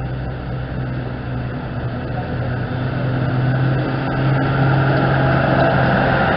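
WWII German half-track driving past with its engine running steadily, getting louder as it approaches.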